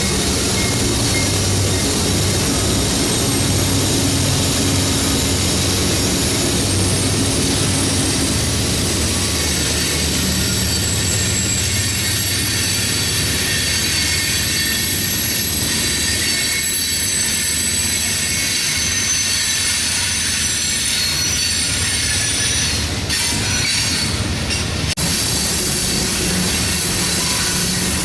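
A train rolling past at close range, its steel wheels squealing on the rails in several steady high tones. A diesel locomotive's low engine hum is heard in the first ten seconds or so, then fades under the sound of the cars rolling by, with a few clicks near the end.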